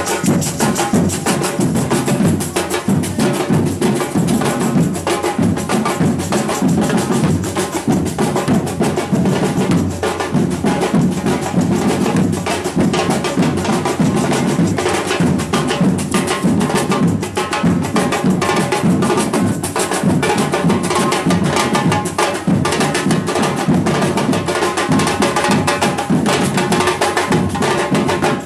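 Samba band's drum section playing a fast, dense groove, with deep bass drums under snare drums and sharp, wood-block-like percussion strokes.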